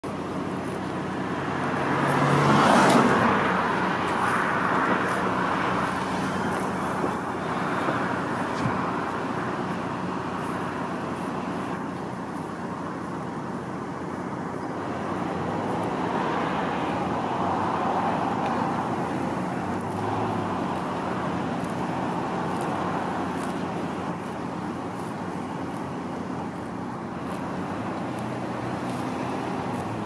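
Road traffic: vehicles passing, a steady noise that swells and fades over several seconds, loudest about three seconds in.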